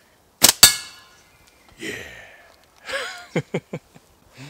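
A slingshot shot: two sharp cracks about a fifth of a second apart, the rubber bands snapping on release and the shot striking the target, the second with a brief ringing. A man's short "yeah" and a burst of laughter follow.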